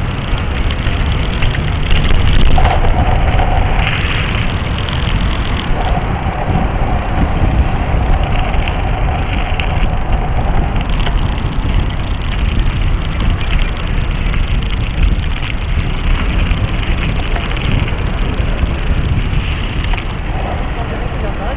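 Steady noise from a small action camera mounted low on a moving bicycle's frame: wind on the microphone, tyre and road vibration, and rattle from the mount.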